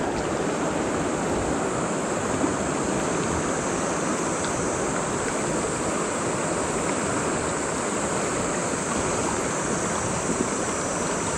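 Steady rushing of a fast-flowing mountain river's current, an even wash of water noise with no break.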